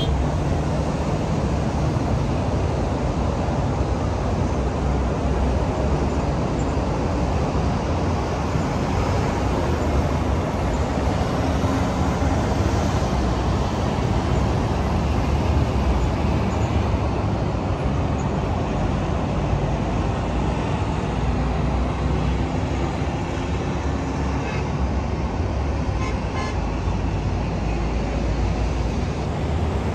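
Steady city traffic noise: a continuous low rumble of cars on the streets below.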